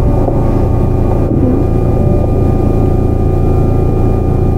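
Sotetsu 9000 series electric train, with Hitachi IGBT inverter control and right-angle cardan drive, running at a steady speed as heard on board. A heavy rumble carries several steady whining tones that hold their pitch.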